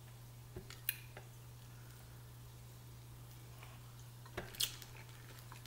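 Faint eating sounds during a crawfish and mussel meal: a few small clicks and wet smacks as seafood meat is dipped in butter sauce and eaten. The loudest pair comes about four and a half seconds in, as the food reaches the mouth, over a steady low hum.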